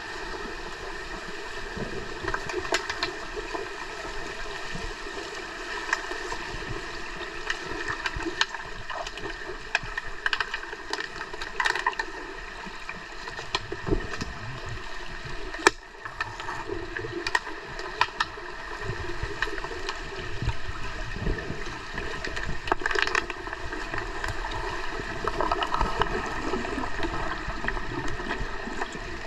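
Underwater pool sound heard from below the surface: a steady hiss and faint hum of water, with gurgling bubbles from the divers and many scattered sharp clicks and knocks from the underwater hockey play.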